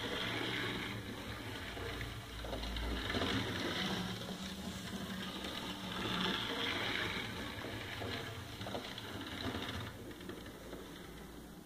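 Fleischmann N-scale DB class 023 model steam locomotive running round the track: the whir of its small electric motor and gear train with the rattle of its wheels on the rails, swelling and fading several times and dropping away near the end.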